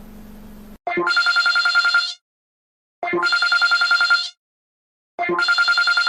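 Telephone-bell ringtone: three rings of rapid, even trilling, each about a second and a quarter long, with about a second of silence between them.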